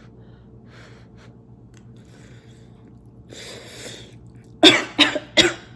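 A woman coughing three times in quick succession, each a sharp burst, after a breathy intake of air; the fiery noodle sauce has caught her throat.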